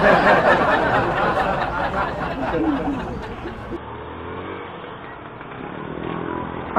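Motorcycle ride in traffic: wind rush on the on-bike microphone over the bike's engine, loudest in the first couple of seconds. It then eases to a steadier engine hum.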